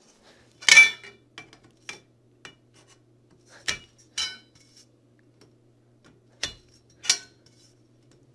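Powder-coated metal beams of a Zinus metal smart box spring clinking and knocking as they are handled and snapped into the frame: a series of sharp metal knocks, the loudest about a second in, then pairs of them near the middle and near the end.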